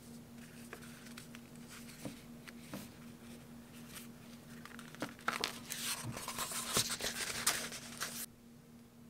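Paper pages of a Kokuyo Campus monthly diary being handled and leafed through. There are a few light taps, then from about five seconds in a louder run of page rustling that stops suddenly near the end, over a faint steady hum.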